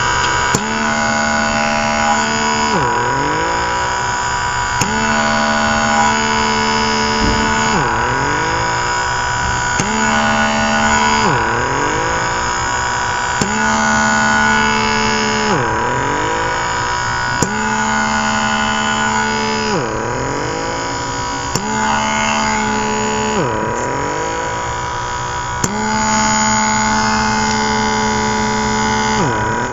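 Small suction pump motor of a rechargeable blackhead vacuum humming with a thin high whine. About every two seconds its pitch dips sharply and climbs back as the suction tip works over the skin.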